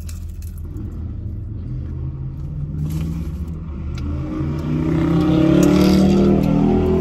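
A car accelerating past on the street, its engine rising in pitch and growing louder to a peak about five to six seconds in, then starting to fade, over a steady low rumble.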